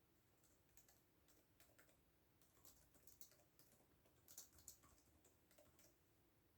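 Faint computer keyboard typing: a run of irregular keystroke clicks that starts about half a second in, grows busier and louder in the middle and stops shortly before the end.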